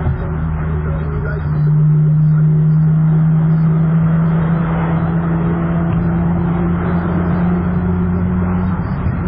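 Car engine droning at a steady pitch at highway speed, with road and tyre noise underneath; the pitch dips briefly right at the start and again near the end.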